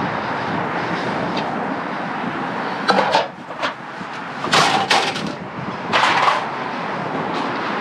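A few short, sharp knocks and scrapes of objects being handled, about a second apart through the middle, over a steady outdoor background hum.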